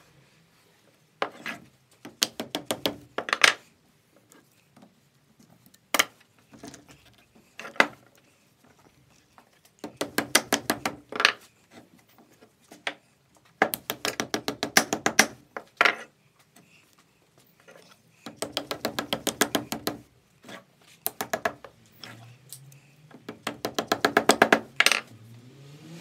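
Thick insulated cable being pulled through the core window of a microwave oven transformer as its new secondary winding. The cable rubs against the steel core in quick runs of clicks, each pull lasting up to about two seconds, with pauses between pulls.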